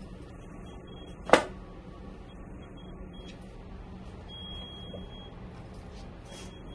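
Laundry being handled and loaded into a top-loading washing machine, with one sharp knock about a second in. A faint high tone sounds for about a second every two seconds.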